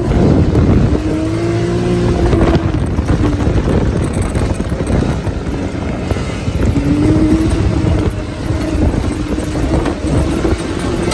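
Side-by-side UTV engine running under load over sand, its pitch rising and falling as the throttle is worked, heard from the open cockpit.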